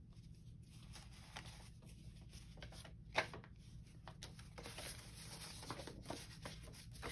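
Faint rustling and shuffling of paper pieces being sorted through by hand from a pile, with one short sharp tap about three seconds in, over a low steady hum.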